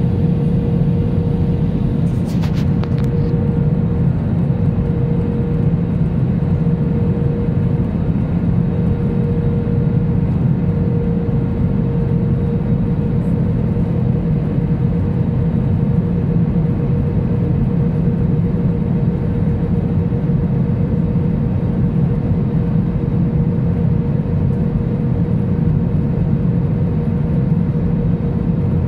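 Airbus A320 cabin noise on approach, heard inside the cabin over the wing: a steady low rumble of engines and airflow with a constant hum on one note. A few faint clicks about two seconds in.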